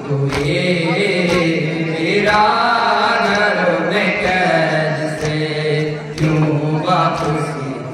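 Male chanting of a noha, a Shia mourning lament, sung in long held notes that rise and fall, with sharp beats roughly once a second.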